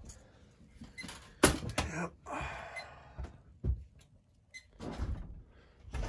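A sharp knock about one and a half seconds in, then a scraping rustle and a few duller thumps, from handling around the cracked, crumbling base of the chimney and flue pipe.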